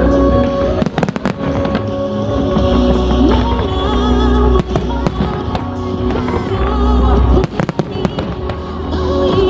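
Fireworks going off: deep booms and clusters of sharp crackling bangs, about a second in, midway and again near the end, over loud music played for the show.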